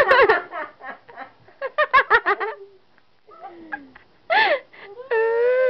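Laughter in quick bursts of giggles, twice, then a long, wavering, high-pitched vocal cry near the end.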